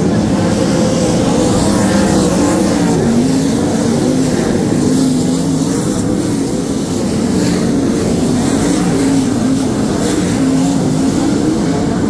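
A field of sprint cars racing on a dirt oval: several V8 engines running hard at once, their pitches rising and falling as the cars go around the track.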